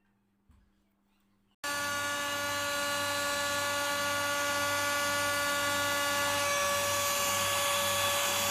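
skyblue.os 9000Pa cordless handheld vacuum cleaner switched on about a second and a half in, its small high-speed motor then running with a steady high-pitched whine over the hiss of rushing air.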